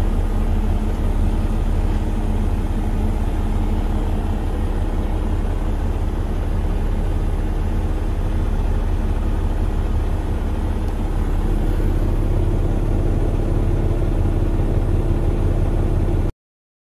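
Emissions-deleted Cummins ISX heavy diesel engine of a Peterbilt 367 idling steadily, heard from inside the cab. The sound cuts off abruptly near the end.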